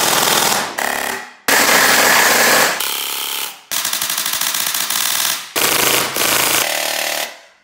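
Rapid full-auto fire from an electric gel blaster, its motor and gearbox cycling fast. It comes as about five bursts that start and cut off abruptly.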